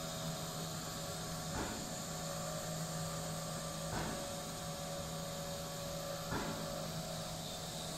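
Excitech five-axis CNC machining center running, its spindle head moving over the workpiece: a steady hum and hiss with a couple of steady tones, and a short noisy swell about every two and a half seconds, three times.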